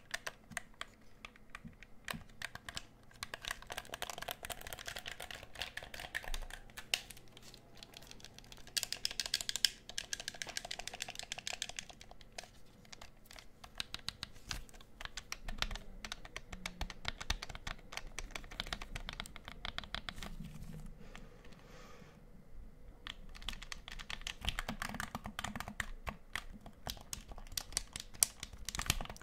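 Fast, aggressive tapping and button-clicking on a plastic game controller held close to the microphone: a dense, uneven run of small clicks, with louder flurries about four, nine and twenty-four seconds in.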